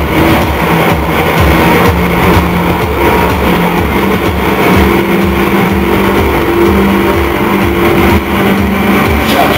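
Loud live industrial/aggrotech band music through a club PA, heavily distorted in the recording: a steady pounding kick-drum beat under sustained low synth or bass notes.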